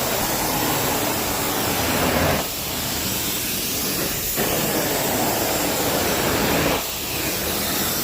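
Carpet-cleaning extraction wand hissing with strong suction, its sound changing with each stroke across the carpet, a stroke every two to two and a half seconds.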